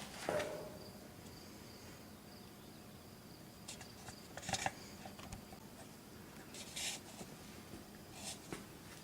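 Quiet background with a few soft scuffs, like footsteps or handling noise, spaced a couple of seconds apart, and a faint steady high chirr through the first few seconds.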